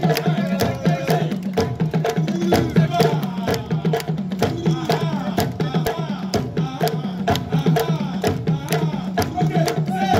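West African drum ensemble playing a fast, dense rhythm on djembes and a talking drum, with rapid hand and stick strokes and tones that bend up and down in pitch.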